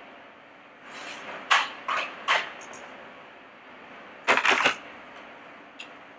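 Kitchen equipment being moved and set down on a stainless steel work counter: a few sharp knocks, then a quick rattling clatter of several clacks about four seconds in as a metal mandoline slicer is handled.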